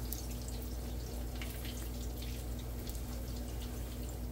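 Corn tortillas frying in shallow hot oil in a pan: a steady sizzle with scattered crackling pops.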